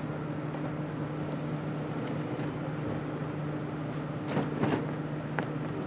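Steady low mechanical hum on two held tones, with a few short clicks and knocks about four seconds in and again shortly before the end.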